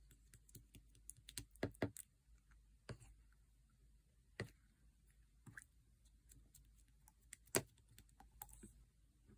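Sherbet slime being played with, giving scattered crisp clicks and crackles, with a few louder pops around two seconds in, near four and a half seconds, and past seven and a half seconds.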